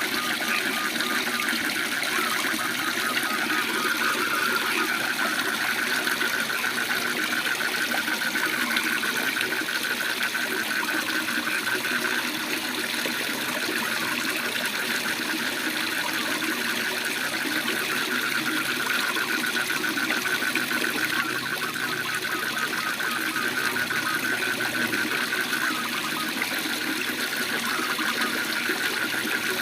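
Waterfall rushing steadily, with frogs trilling in a fast, continuous pulsing chorus over it.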